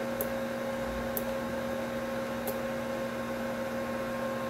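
Steady electrical hum with several fixed tones over an even hiss, with three faint sharp clicks in the first few seconds.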